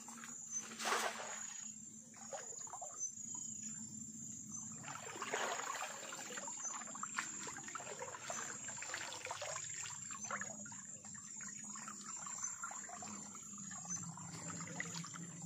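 Shallow river water splashing and trickling in irregular bursts as someone wades and works a fishing net by hand, over a steady high-pitched trill of crickets.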